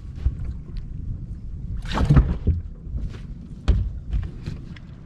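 Thuds and knocks on a fishing boat's deck, the two loudest about two seconds in and near four seconds in, over a low steady rumble.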